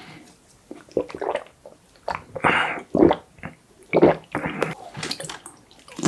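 Close-miked gulping and swallowing of a canned Coco Palm drink: a string of separate wet swallows and mouth sounds, the loudest a little past the middle.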